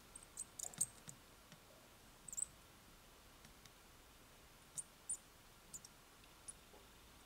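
Faint, irregular small clicks and ticks from soldering header pins onto a Raspberry Pi Zero W: the iron tip and solder wire dabbing at the pins, a few quick ticks about a second in and a scattered handful later.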